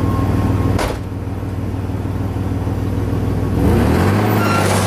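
Vehicle engine idling, with a sharp click a little under a second in, then revving up about three and a half seconds in and holding the higher speed while it pulls a load on a tow rope.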